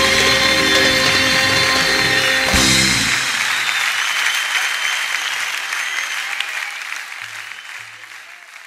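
Music ends the song on a final held chord with a sharp accent about two and a half seconds in. Audience applause follows and fades away.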